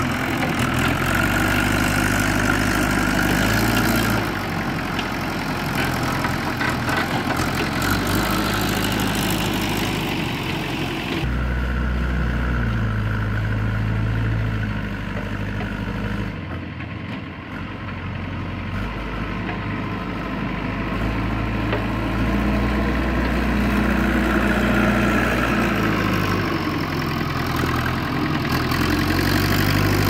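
Diesel engines of a JCB 3DX backhoe loader and a tractor running, the engine speed stepping up and down several times as the loader scoops and lifts sand.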